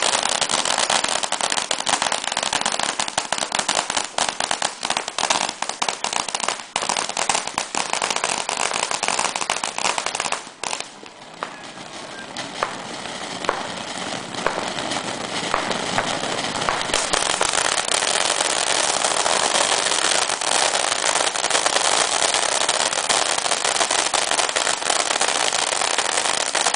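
Ground firework fountains spraying sparks, a loud continuous crackling hiss. It drops away about ten and a half seconds in, then builds back up as the next fountain gets going.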